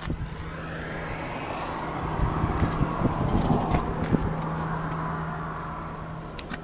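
Vehicle engine idling with a steady low hum, while a broad rush of road noise swells in the middle and fades away again.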